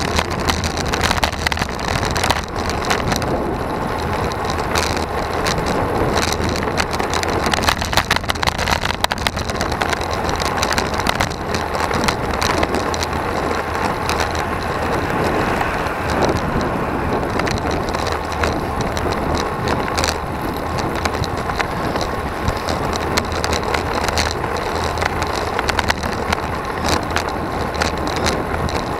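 Road bike riding on asphalt, heard through a bike-mounted camera: a steady rush of wind and tyre noise with a deep rumble, broken by frequent small rattles and clicks.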